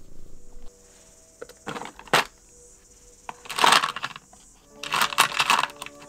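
Steel axle nuts and washers clattering in a plastic drawer as a hand rummages through them, in three short bursts of clinking.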